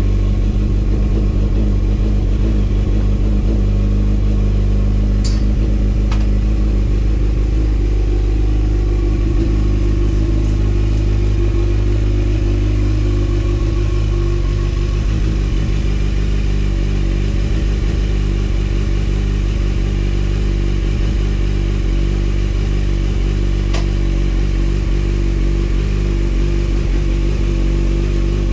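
Honda CB1000R's inline-four engine running at a steady idle on a very cold start.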